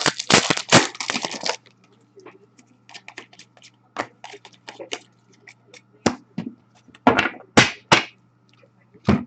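Trading card packaging being opened and handled: a burst of tearing and crinkling in the first second and a half, then scattered sharp cracks and rustles of wrappers and cardboard.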